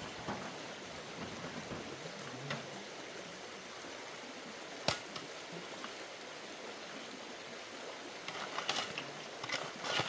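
Steady rushing noise of running water, with a single sharp knock about halfway through and a few quick knocks near the end.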